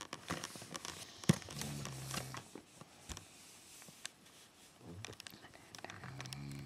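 A sleeping woman snoring: two low snores about four and a half seconds apart, each lasting about a second, among scattered small clicks and rustles, with one sharp click shortly before the first snore.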